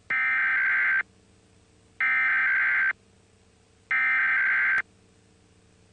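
Emergency Alert System digital header of a Required Weekly Test: three one-second bursts of buzzing data tone, about a second apart.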